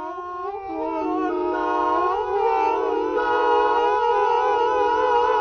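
Ambient music of several held tones layered over one another, sliding slowly up and down in pitch and growing louder over the first two seconds.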